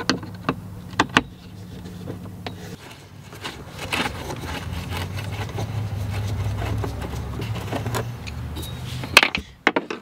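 Torx screwdriver working screws out of a golf cart's plastic dash panel: scattered clicks and scrapes of the bit and plastic, with a few sharper clicks near the end as the panel is handled. A low steady hum runs underneath, louder in the middle.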